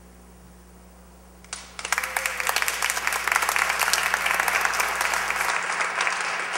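A quiet moment with a faint steady hum, then an audience breaks into applause about a second and a half in.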